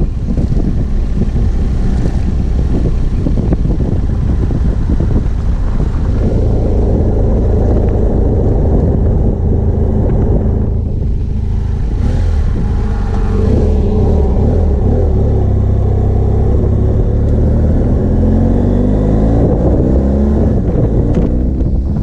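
BMW F 800 GS Adventure's parallel-twin engine running under way. The engine note rises as it accelerates, briefly about two-thirds of the way in and again over the last few seconds.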